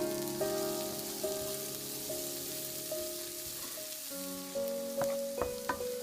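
Food sizzling in a hot pan, a steady hiss under background music with a simple melody; a few sharp clicks near the end.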